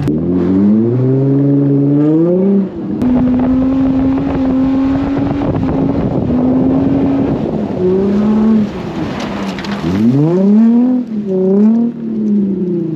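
Infiniti G35's V6 engine revving hard, rising, holding high revs for several seconds, dropping, then revving up and down again near the end, with wheels spinning: the car is stuck in the snow and being driven to break free.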